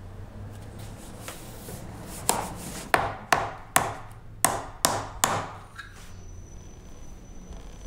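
Shoemaker's hammer striking the sole of a shoe, seven sharp irregular blows about two a second.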